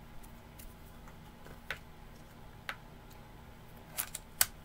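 Scattered light clicks and taps of small craft tools being handled and set down on a tabletop, about six in all, the loudest two near the end.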